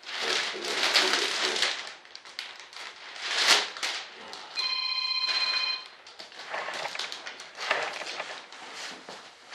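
Thin plastic vacuum-bagging film crinkling and rustling as hands smooth it down over a fiberglass wing lay-up. About five seconds in, an electronic ring tone sounds once for a little over a second.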